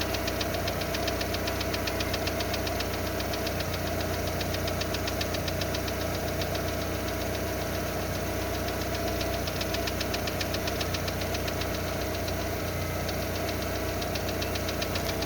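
Lada Largus's 1.6-litre 16-valve VAZ-21129 engine idling with a fast, even valve-train ticking knock that new hydraulic lifters have not cured; the owner says it goes quiet once the engine is warm. The engine runs loud because of a torn exhaust flex pipe.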